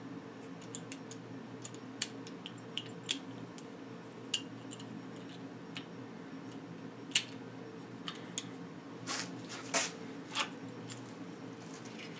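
Scattered light clicks and scrapes of a bicycle brake lever and its cable being handled and fitted on a handlebar, with a few short rasping sounds about nine to ten and a half seconds in, over a steady low hum.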